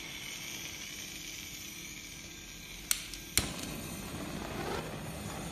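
Handheld gas torch on a butane canister: gas hissing from the nozzle, then two sharp clicks about three seconds in, after which the flame lights and burns with a steady rushing sound.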